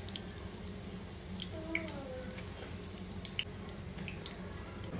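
Hot oil in a frying pan crackling with scattered small pops, left over from shallow-frying chicken kababs, over a low steady hum.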